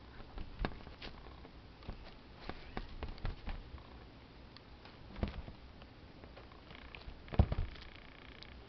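Red-and-white Exotic Shorthair kitten playing, scampering and pawing at a toy on quilted fabric: scattered soft taps, bumps and rustles, the loudest bump near the end, along with a faint high ringing for about a second.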